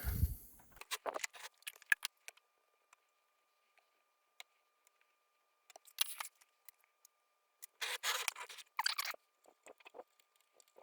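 Small clicks and scrapes of a replacement dual diode pack being handled and tried against a circuit board, with short scraping rustles about halfway through and again a little later. A faint steady high whine sits underneath.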